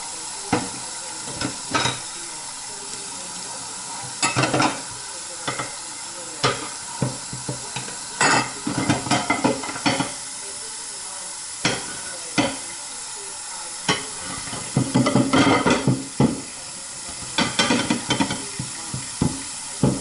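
Kitchen faucet running steadily into a sink while dishes are washed by hand: a plastic cup and plates clatter and knock against the sink and each other, in irregular bursts of several sharp clinks.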